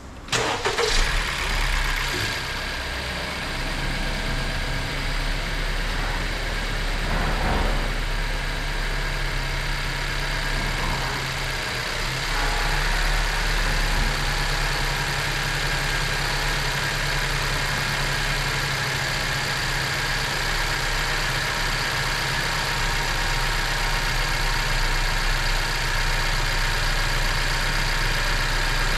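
Honda CR-V engine starting in the first second, then idling steadily with the air conditioning switched on; a little louder from about twelve seconds in.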